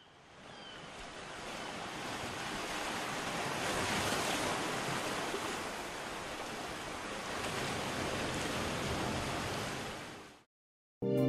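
Sea waves and rushing water, a steady hiss with no distinct strokes, fading in over the first few seconds and fading out shortly before the end.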